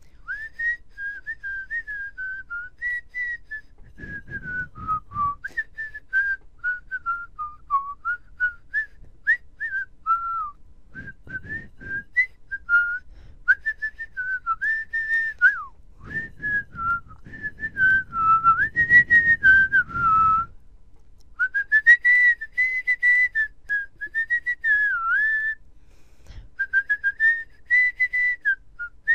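A person whistling a meandering tune in short phrases with brief pauses, the pitch wandering up and down. A soft low noise sits under it a few times.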